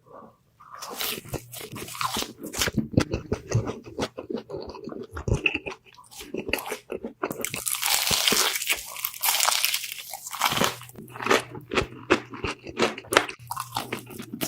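Close-miked ASMR eating: loud crunching bites and chewing of crispy food, with a dense run of continuous crunching about halfway through.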